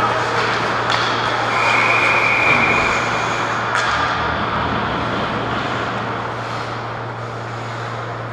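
Ice hockey rink ambience: a steady rushing wash of arena noise over a low hum. About two seconds in, a high whistle-like tone holds for a second or so, and just before four seconds there is one sharp knock.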